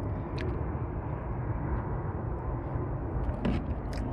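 Steady low outdoor rumble, with a few light clicks and taps from a plastic motor-oil jug being handled over a funnel near the start and end.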